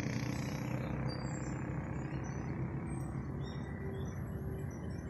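Steady wind rumble on the phone microphone, with a few faint high bird chirps.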